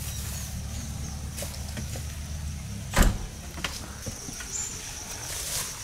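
A vehicle engine idling low, then one sharp knock about three seconds in, followed by a few light clicks as a break-action tranquilliser dart gun is handled and loaded.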